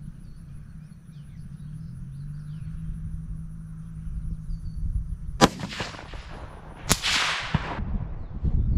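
A single sharp rifle shot from a .204 Ruger Savage 110 about five and a half seconds in. About a second and a half later comes a second sharp crack, followed by a hiss lasting most of a second.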